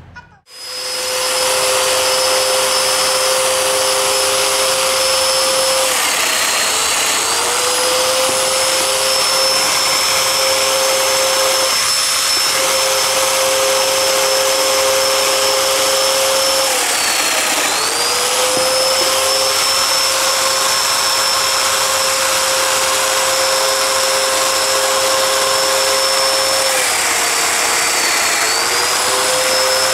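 Festool Domino joiner running steadily, cutting mortises in American black walnut; its whine drops in pitch briefly three times as the cutter bites into the wood.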